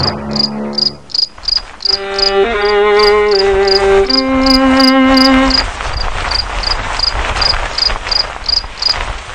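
Cricket chirping sound effect: short high chirps repeating about three times a second. Under it, held musical notes play for the first half, then give way to a steady rushing noise.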